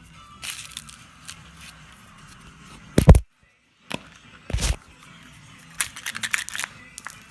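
Two heavy blows about a second and a half apart as a Kinder Surprise egg is smashed, followed by a burst of crackling and clicking from its foil and plastic capsule, over faint background music.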